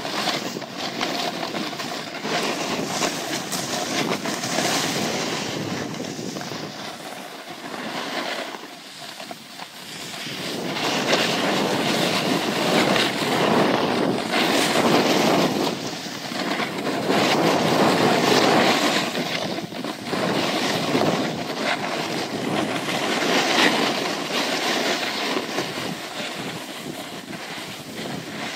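Rushing of wind over the microphone mixed with the hiss of sliding on snow, heard while travelling down a ski slope. The rush swells louder about ten seconds in and eases after about nineteen seconds.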